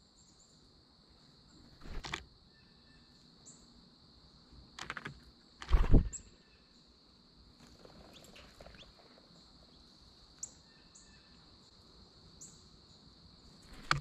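Steady high insect trill with short, high bird chirps every second or two. Several dull knocks or bumps, the loudest about six seconds in, with another at the very end as a bird lands at the peanut tray.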